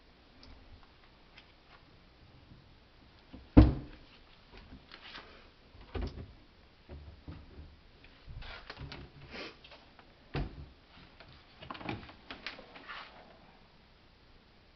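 Wooden kitchen cabinet doors being opened and shut, with several knocks and rustling handling between them. The loudest knock comes about three and a half seconds in.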